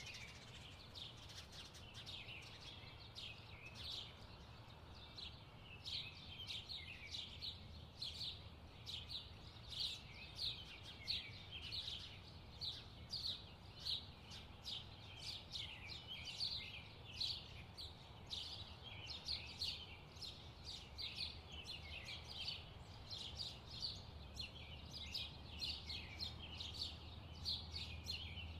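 Birdsong: many small birds chirping in quick, overlapping calls, several a second, over a faint low hum.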